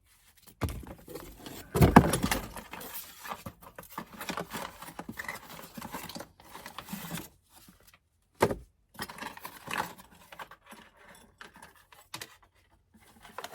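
Small metal parts clinking and packaging rustling as the quick release steering wheel kit is handled, with a couple of louder knocks about 2 seconds and 8.5 seconds in.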